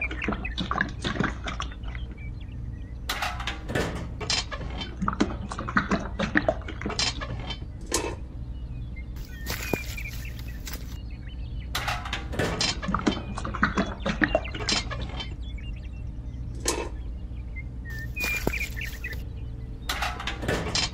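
Wet concrete mix being poured from a small tin bucket and scraped and patted out by hand, with frequent small clicks and taps of the bucket over a steady low hum.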